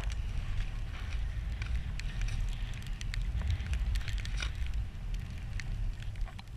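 Skis running through deep powder snow, a continuous hiss, under a low rumble of wind on the camera microphone, with scattered sharp ticks throughout.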